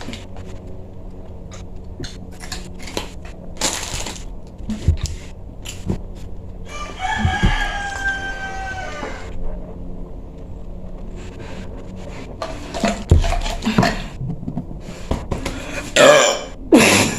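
A rooster crowing once, a single drawn-out crow of about two and a half seconds a little past the middle, with scattered light clicks and knocks around it.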